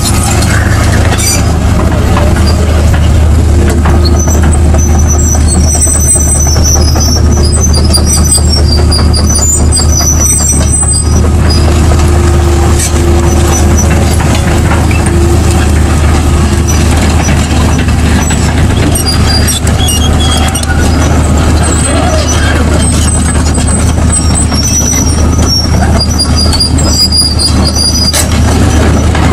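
Komatsu PC220LC-8 excavator's six-cylinder diesel engine running steadily as the machine travels on its steel tracks, a loud continuous low rumble with intermittent high-pitched squeaks.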